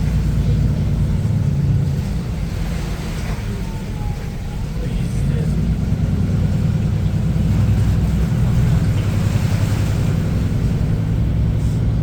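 A motor vehicle's engine running steadily, with a low, even drone that dips slightly about four seconds in and picks up again.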